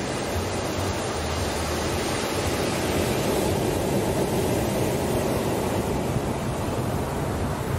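Ocean surf washing onto a sandy beach: a steady rush of breaking waves.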